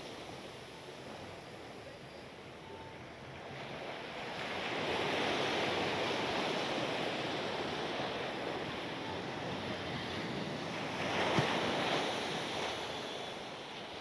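Sea surf washing up onto a sandy beach, an even rush of water that swells about four seconds in and again around eleven seconds.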